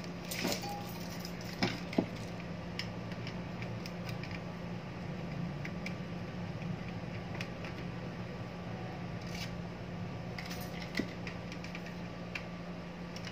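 Screwdriver working the screws of a DVR's sheet-metal chassis: a few sharp clicks and light metal taps, the loudest about two seconds in and again near eleven seconds, over a steady low hum.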